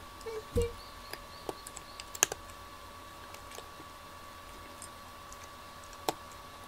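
Cats eating dry kibble from ceramic bowls: scattered small crunching clicks, with a sharp click about two seconds in and another near the end. A faint steady hum runs underneath.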